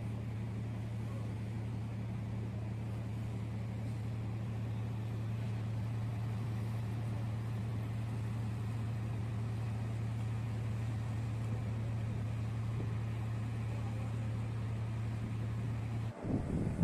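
Steady low drone of a platform supply vessel's diesel engines, heard from on board while under way. It cuts off suddenly near the end and gives way to wind buffeting the microphone.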